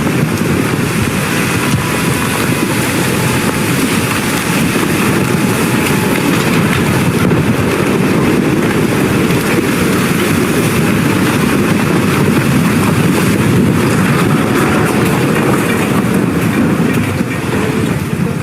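Loud, continuous rumbling and rattling noise, steady throughout and easing slightly near the end.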